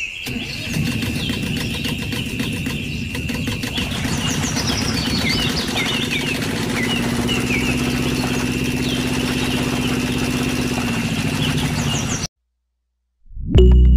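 A motor running steadily, with a thin high whine over its low hum and some short high squeaks in the middle. It cuts off abruptly near the end.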